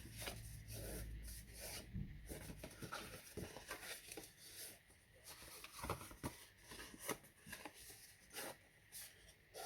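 Scored cardstock being folded and creased by hand along its score lines: faint rustling and crinkling of the card with scattered light clicks.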